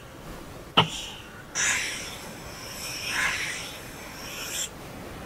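Apple Pencil tip tapping once on the iPad screen, then about three seconds of scratchy sliding as it draws strokes across the glass, stopping abruptly.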